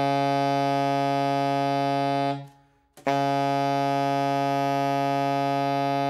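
Alto saxophone sounding a long low B-flat with a loose, open embouchure, the full note the player says comes "singing right out" when the embouchure is right. The note stops about two and a half seconds in, and the same low B-flat starts again about half a second later and is held.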